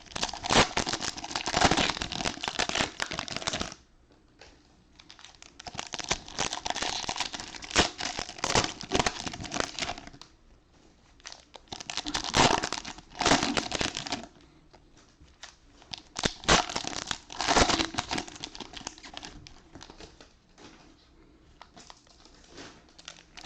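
Plastic cello-pack wrappers of football trading cards crinkling and tearing as they are ripped open by hand. The crinkling comes in bursts of a few seconds each, with short quieter gaps between them.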